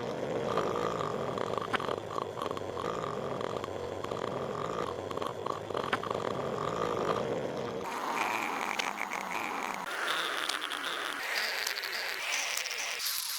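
Patrick Star's cartoon snoring sound effect, played as a series of edited variations: one long version for about the first eight seconds, then short clips about a second each, pitched successively higher.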